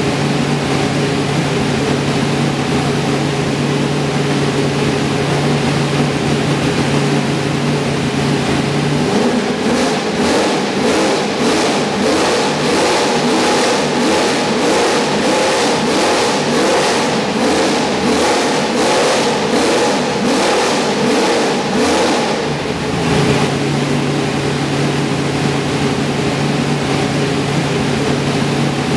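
Race car engine idling steadily, then blipped over and over for about thirteen seconds, each quick rev rising and dropping back roughly once a second, before settling back to a steady idle.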